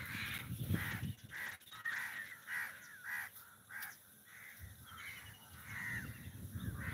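Crows cawing, a run of short harsh calls in quick succession that pauses briefly about four seconds in and picks up again near the end.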